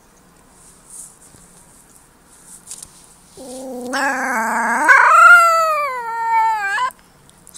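A white puppy howls once, starting about halfway through. The howl begins low and wavering, jumps up in pitch, then slides slowly down and stops abruptly. Before it there is only faint rustling.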